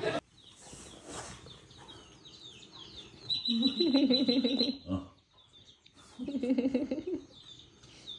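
Cartoon chick sounds played through a TV: rapid high peeping chirps, with two louder, lower calls, one near the middle and one about three-quarters through.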